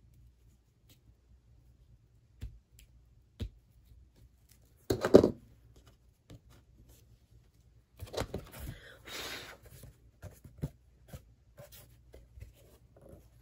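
Tabletop crafting handling noise: scissors trimming wired ribbon with faint snips and clicks, a few knocks on the table, the loudest about five seconds in, then a couple of seconds of rustling as the ribbon and board are handled.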